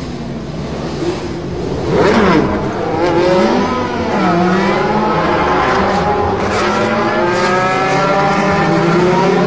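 Race car engine revving and accelerating. Its pitch dips and climbs back about two seconds in, like a car sweeping past, then rises steadily as it pulls through the gears.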